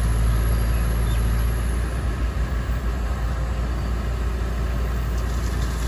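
Excavator engine running steadily, a constant low drone with mechanical noise over it.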